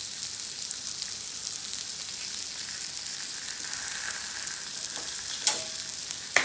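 Kingfish steak sizzling on a ridged grill pan, a steady crackling hiss. Two sharp clicks stand out near the end.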